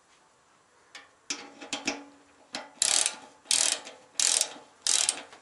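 Ratchet wrench tightening the bolt that holds the rear of a motorcycle fuel tank to the frame: a few light clicks as the tool is set on the bolt, then four quick ratcheting strokes about two-thirds of a second apart.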